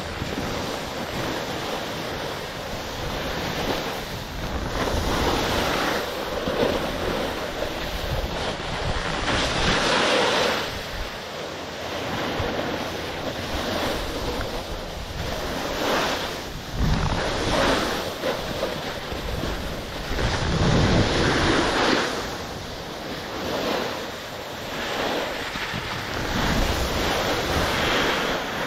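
Skis sliding and scraping over snow while wind rushes over the microphone, the noise swelling and fading every few seconds.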